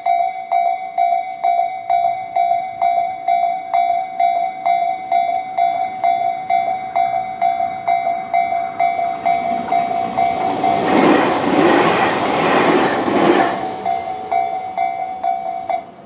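Electronic level-crossing warning bells (Tobu-type "sound C" on both sides) ringing steadily at about two strikes a second. A Tobu 500 series electric train passes through from about nine to fourteen seconds in, its running noise loudest midway and briefly drowning the bells. The bells cut off at the very end as the crossing clears.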